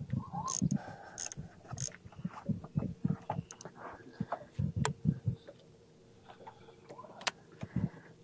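Fishing gear being handled on a boat: a reel being cranked, with irregular clicks and low knocks, over a faint steady hum.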